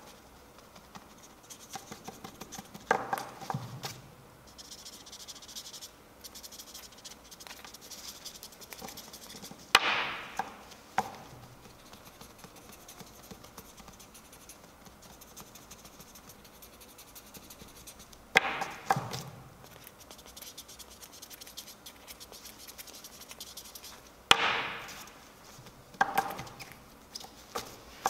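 Plastic marker pens and caps being knocked and set down on a table: about five sharp knocks several seconds apart, each dying away with a falling tone, with faint scratching and rubbing between them.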